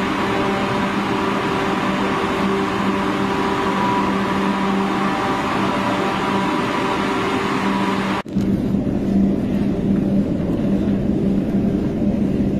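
Steady mechanical hum with a rushing hiss in an underground metro tunnel. About eight seconds in, an abrupt cut changes it to a duller rumble with the same hum but without the hiss.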